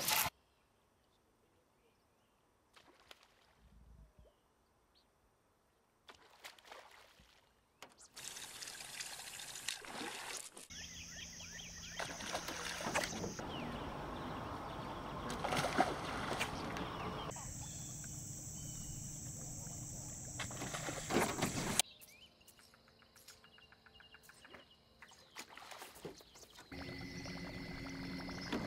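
Topwater lures being worked across lake water, with water splashes and sloshing from bass striking them, in several short separate clips. Through the middle stretch a steady hum with a thin high tone runs under the water sounds.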